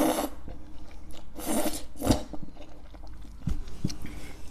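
A person slurping ramen noodles and then chewing them: a slurp that ends just after the start, two more short slurps about a second and a half and two seconds in, then chewing with a few light clicks.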